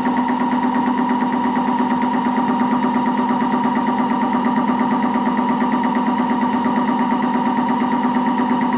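Moore jig borer spindle running a cutter through a metal part, milling a radius: a steady machine hum with a high tone over it and a fast, even pulsing.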